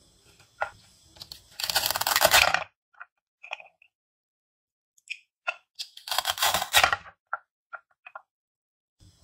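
Velcro fastening ripping apart twice, each rip about a second long, as toy plastic bell peppers are split into halves. Short light taps and clicks of the plastic pieces on a wooden cutting board come between the rips.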